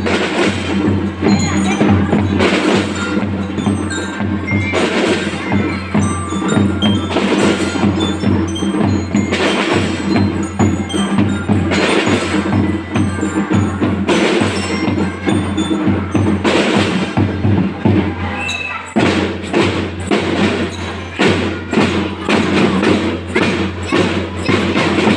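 A drum band playing: rhythmic marching drums under a melody of short bell-lyra (glockenspiel) notes, with a loud crash about every two and a half seconds. The playing briefly thins out about three-quarters of the way through, then carries on.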